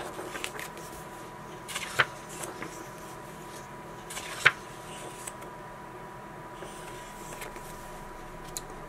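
Pages of a large softcover book being turned by hand: short paper rustles, each ending in a sharp slap as the page lands, loudest about two seconds in and about four and a half seconds in, with a few lighter rustles later. A faint steady hum runs underneath.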